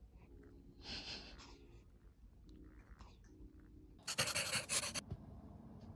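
Faint breathing sounds, then a loud burst of rustling about four seconds in that lasts about a second.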